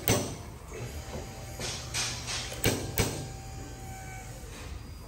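Slide hammer knocking against its stop as it pulls on a screw set into the drilled front input seal of a GM 4x4 transfer case. About six sharp knocks come in the first three seconds, followed by a quieter stretch, while the old seal is being worked loose.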